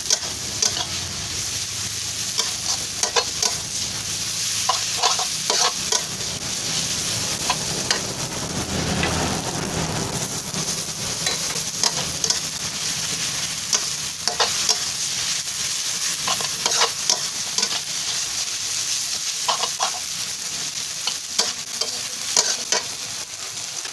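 Pad thai noodles stir-frying in a steel wok: a steady sizzle, with a metal spatula repeatedly scraping and clinking against the pan.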